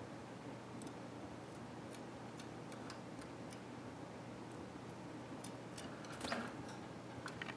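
Canaries moving about a wire cage and feeding at the food cups: scattered faint clicks and taps of beaks and claws on the bars and plastic cups, with a louder brief knock about six seconds in and another sharp click near the end.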